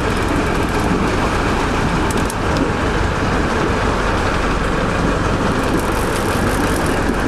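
Boat engine running steadily under a constant rush of wind and water noise.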